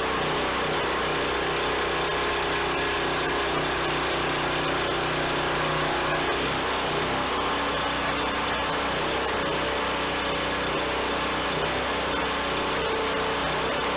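Brand-new small gasoline engine on a log splitter running steadily, its tone shifting slightly about halfway through.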